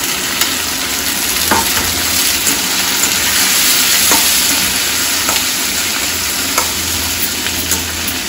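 Chopped tomatoes and shallots sizzling in hot oil in a stainless steel pan, stirred with a steel slotted spoon that clinks against the pan now and then.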